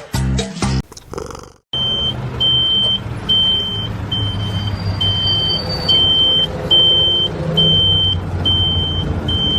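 A vehicle's low engine rumble with a high electronic beep repeating evenly, a little more than once a second, starting about two seconds in.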